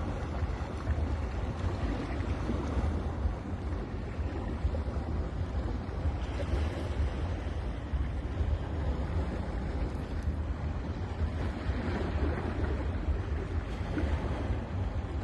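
Ocean surf on a beach: a continuous wash of waves over a steady low rumble, swelling twice as waves break, about six seconds in and again near the end.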